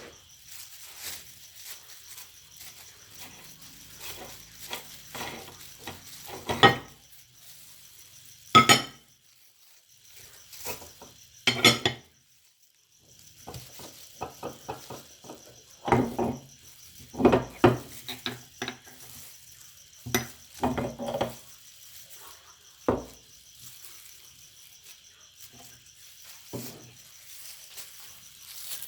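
Scattered knocks, clinks and taps of kitchenware being handled, irregular and separated by quiet gaps, with a faint steady high whine in the background from about halfway.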